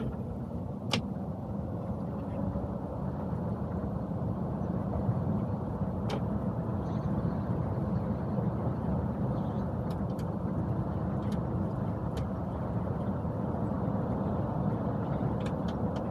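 Steady road and tyre noise inside the cab of a battery-electric IVECO truck driving at highway speed, with no engine note, and a few faint clicks scattered through it.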